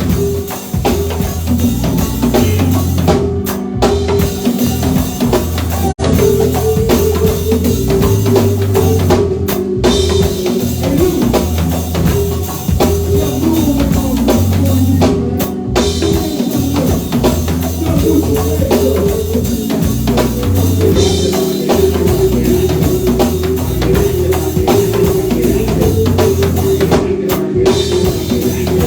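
Live band playing an instrumental groove: a drum kit with bass drum and snare keeps a steady beat under sustained melodic lines. The sound drops out for an instant about six seconds in.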